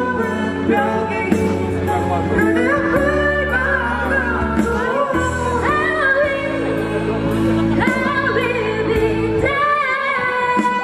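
Amplified vocal group of two men and two women singing a song together in harmony, over steady low bass notes. The low part stops near the end, leaving a high held note.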